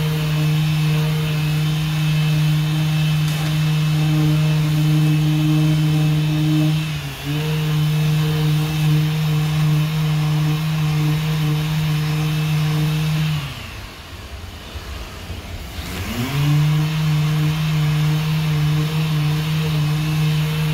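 Orbital sander with a dust-extraction hose, running steadily while sanding body filler on a car panel. Its speed dips briefly about seven seconds in. Around thirteen seconds it winds down and stops for a couple of seconds, then spins back up to speed.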